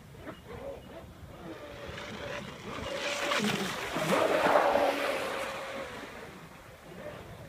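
Pro Boat Blackjack 24 RC catamaran's brushless electric motor whining as the boat speeds past close by, with the hiss of its spray. The sound grows louder, peaks about four to five seconds in, then fades as the boat runs away.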